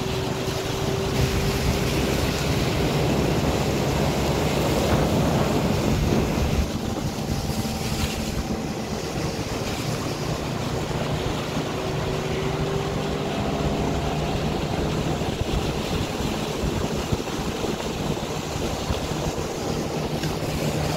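Small boat's outboard motor running steadily at speed, a constant low hum over the rush of water along the hull and the wake, with wind on the microphone.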